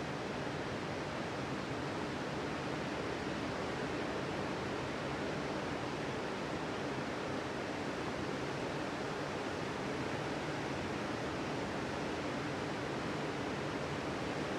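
Sea surf washing onto a beach, a steady rushing noise with no distinct wave breaks.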